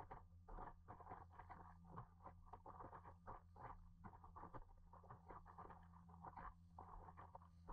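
Faint, irregular patter of small waves slapping and splashing against the nose and sides of an inflatable paddleboard as it moves through choppy water, over a steady low hum.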